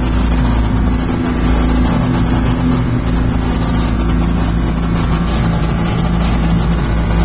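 Ferry's engine running steadily under way, a constant drone with a few steady low tones over a dense rumble, mixed with the rush of the churning wake.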